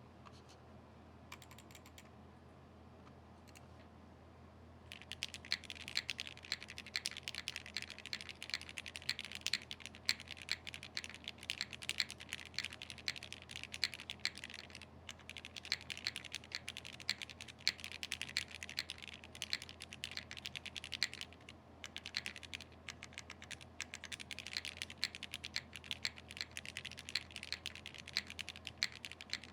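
Typing on an Acrylic60 60% custom mechanical keyboard with no foam inside, fitted with 67 g Tangerine linear switches and GMK Carbon keycaps. Fast, continuous keystrokes start about five seconds in, with a couple of brief pauses.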